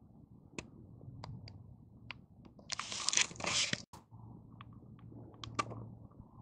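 Close rustling and crunching handling noise with scattered sharp clicks, loudest in a crinkly rustle about three seconds in that cuts off abruptly.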